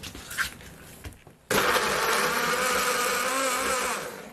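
Small Philips electric blender switched on and running, grinding chunks of onion, green chilli and garlic with a little water into a paste. A few light clicks come first, then the motor starts abruptly about a second and a half in, whirs steadily for about two and a half seconds, and winds down near the end.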